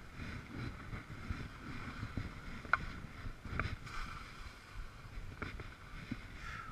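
Wind buffeting a helmet camera's microphone as a low, uneven rumble, with a few light clicks.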